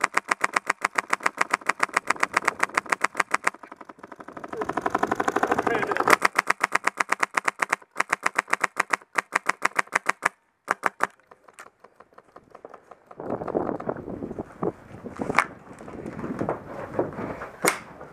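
Airsoft rifle firing long, rapid full-auto bursts close up, then a few single shots. After that comes the rustle and knock of gear and footsteps as the shooter moves.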